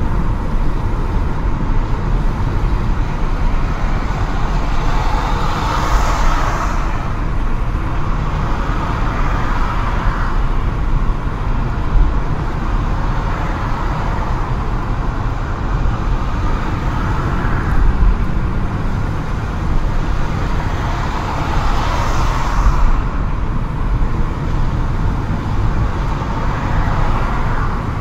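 A car driving slowly in dense traffic, heard from inside the cabin: a steady low engine and road rumble that swells up and falls back several times.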